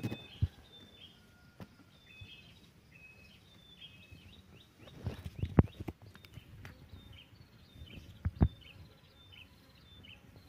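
A small bird chirping over and over in short, high, stepping notes, with a few dull thumps, the loudest about five and a half seconds in and again near eight and a half seconds.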